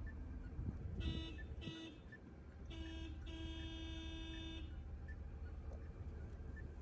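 Truck horn sounded in short toots: two quick beeps about a second in, then a short one and a longer one of about a second and a half. A thump comes just before the first beep, all over the steady low hum of the idling diesel engine.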